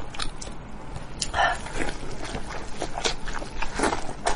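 Close-up wet mouth sounds of eating sheep's head meat: chewing, lip-smacking and sucking, in a string of irregular smacks and clicks.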